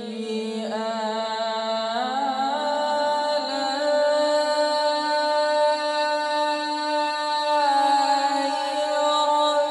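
A man reciting the Quran in a slow, melodic tajweed style into a microphone, drawing out long held notes that step up in pitch about two seconds in.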